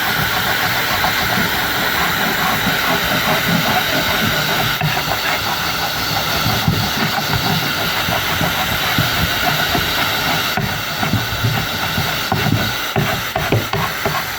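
Handheld power tool running steadily as it strips the old varnish off a wooden galley part. It becomes uneven, with a few knocks, in the last few seconds.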